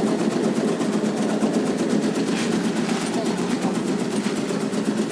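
Motorised tobacco-cutting machine running steadily, its engine hum overlaid with a rapid, even chopping of the blade through the tobacco leaves.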